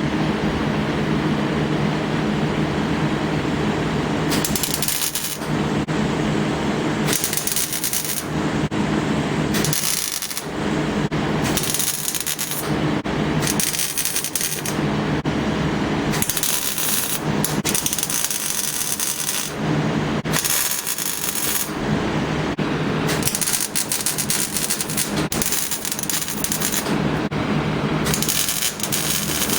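Welding of sheet-steel patch panels into a car floor: short runs of welding-arc noise, each about one to two seconds long and coming every second or two, over a steady hum.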